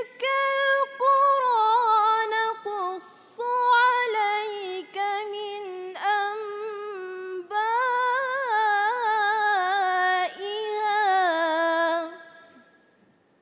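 A woman reciting the Quran in the melodic competition (tilawah) style, her voice high and clear, with long held notes and wavering ornaments. She recites in several phrases with brief breaths between them, and the last phrase fades out about twelve seconds in.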